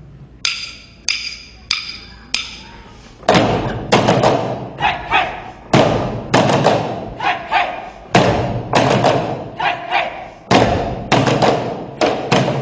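Live percussion: four sharp wooden clicks with a short ring, about half a second apart, then from about three seconds in loud, deep thumps struck in a quick, uneven rhythm.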